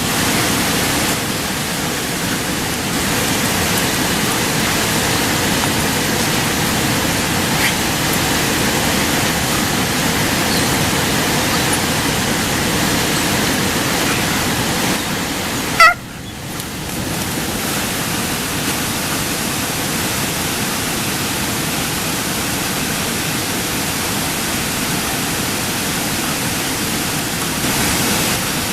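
Waterfall rushing, a loud, steady roar of falling water. About halfway through, one sharp, loud knock, after which the roar dips for a moment and then settles back.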